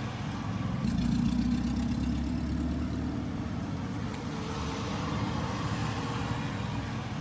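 A car engine running steadily, a little louder for about a second shortly after the start.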